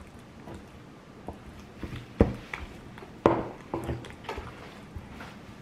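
Wooden pestle pounding and mashing guacamole in a wooden mortar: a series of irregular dull knocks with a squishy edge, roughly two a second, with two louder thuds near the middle.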